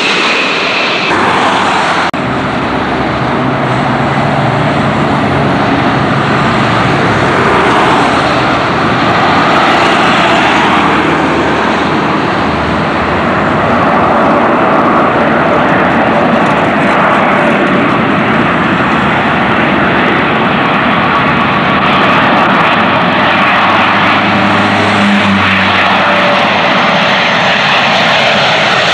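Boeing 747-400 airliner's jet engines on final approach, a loud steady rush of jet noise as it comes in to land. The sound changes abruptly about two seconds in.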